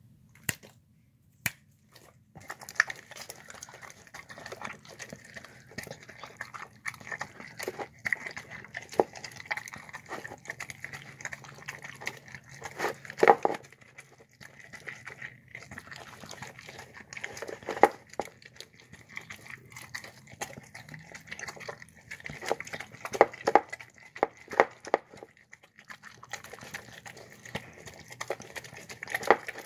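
A dog eating from a bowl, starting about two seconds in: rapid wet chewing, smacking and lapping, with a few louder knocks.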